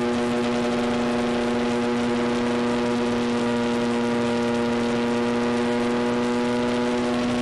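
Electric motor and propeller of a Multiplex FunCub RC plane running at steady throttle in flight: a steady, even-pitched hum with airflow rush, heard from the plane's onboard camera.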